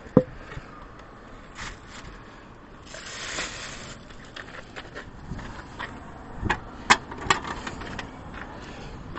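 Camping gear being handled: scattered knocks and clicks, one sharp knock right at the start and three more in quick succession about two thirds of the way in, with a brief rustling scrape around the third second.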